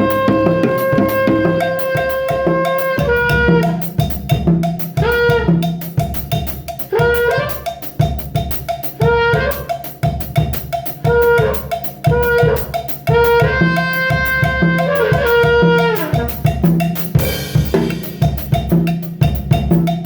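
Drum kit played in a steady, busy beat along with music that carries a melody of long held notes with slides between them.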